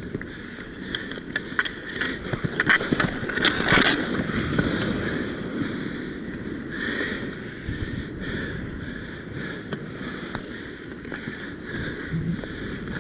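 Inline skate wheels rolling and scraping on the rink surface during a roller hockey game. A quick run of sharp stick clacks comes about one to four seconds in, with scattered lighter clacks later.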